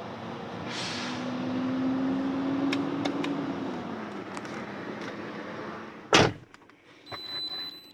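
1998 Mercedes ML320's 3.2-litre V6 idling, its hum rising a little in pitch and settling back; the engine is throwing random and cylinder 1, 2 and 3 misfire codes. A car door slams about six seconds in, muffling the engine, and a short high beep follows near the end.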